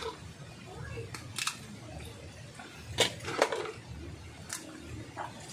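Kagang crabs being broken apart by hand over a plastic basin: a few sharp cracks and clicks of shell, the loudest pair about three seconds in.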